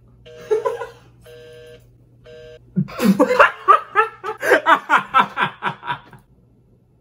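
A few short electronic phone tones beep in a stop-start pattern. Then, about three seconds in, a man bursts into hard laughter in quick, rapid pulses for about three seconds, the loudest thing heard.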